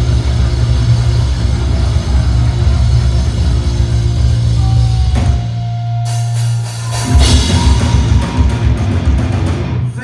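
Heavy metal band playing live: distorted electric guitars, bass and drum kit. About five seconds in, the band thins to a held low note with one ringing tone. About two seconds later it crashes back in at full force.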